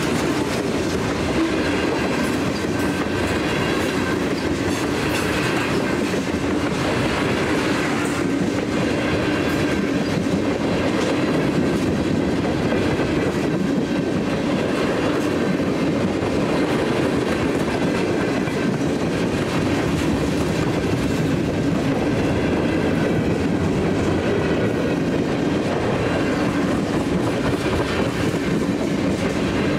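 Cars of a Canadian National freight train rolling steadily past, their steel wheels clicking over the rail joints.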